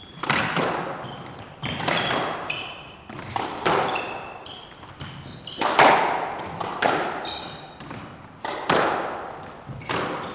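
Squash rally: the ball cracks off rackets and walls with sharp, echoing strikes about every second inside the enclosed court. Short high squeaks from the players' shoes on the wooden floor fall between the strikes.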